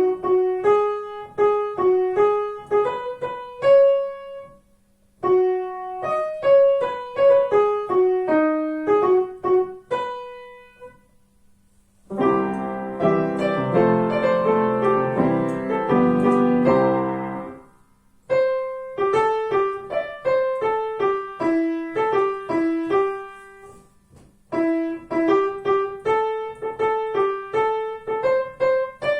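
Piano playing a simple single-note melody in short phrases with brief pauses between them. In the middle, a dense passage of full chords sounds for about five seconds before the single-note melody returns.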